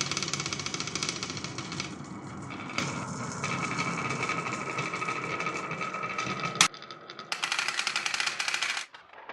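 Many marbles rolling and clattering rapidly down a marble run track. There is a sharp click about six and a half seconds in, a brief lull, then another burst of rattling that stops shortly before the end.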